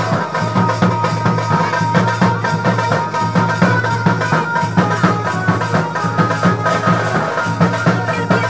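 Band music with drums beating steadily under a held melody line.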